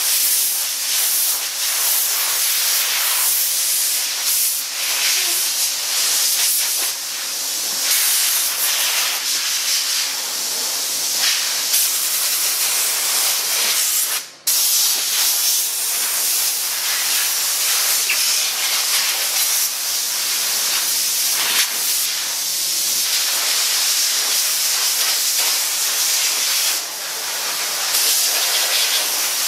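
Steam-cleaning gun hissing as it blasts a jet of pressurized steam, almost without a break. The hiss cuts out briefly about halfway through, then resumes.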